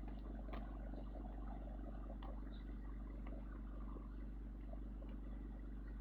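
Steady low vehicle engine drone, even in pitch, with a few faint clicks.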